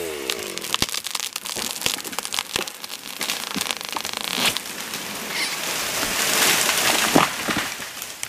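A felled tree going over: the wood cracks and snaps as it tips off the stump, then it crashes through branches into the snow, loudest about seven seconds in. The chainsaw dies away in a falling tone at the start.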